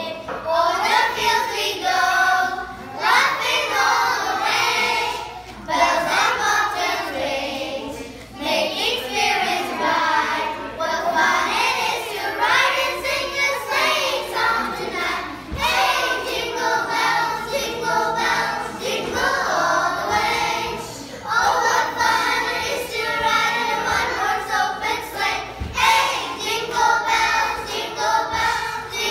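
A group of children singing a Christmas carol together, phrase after phrase with short breaths between lines.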